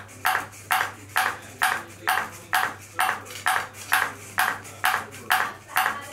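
Ping pong ball bouncing steadily on a robot's round paddle, a sharp tap about twice a second in an even rhythm, with a faint steady low hum underneath.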